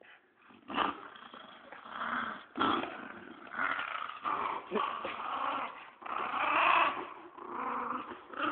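Small dog growling in repeated bursts while it bites and tugs at a plastic frisbee, with a couple of sharp knocks early on.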